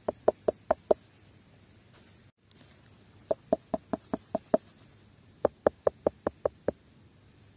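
A hand knocking on ripe pumpkins in three quick runs of about five to seven knocks each, at about five knocks a second. Each knock is a short, hollow thump, the sound that marks the pumpkin as ripe.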